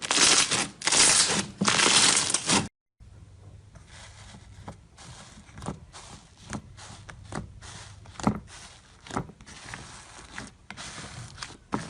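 Slime being squeezed and pressed by hand: three loud crinkly, crackling squishes, then after a short break, quieter sticky clicks and pops as it is worked.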